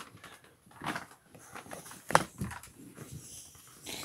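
Handling noise of a phone held close up in a cramped hiding spot: scattered rustles and soft knocks, with one sharper knock about two seconds in.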